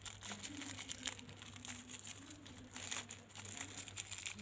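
Small plastic sticker packet crinkling in the fingers as it is pulled open: a run of short, quiet crackles.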